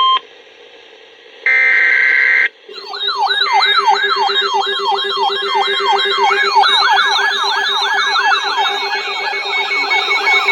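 Emergency alert broadcast: a roughly one-second burst of data-header tones, then from about three seconds in a siren-like attention signal of fast, repeated rising-and-falling sweeps over a steady low tone.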